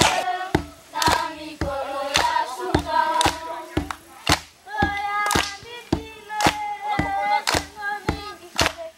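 A group of children singing together in chorus, keeping time with hand claps about twice a second.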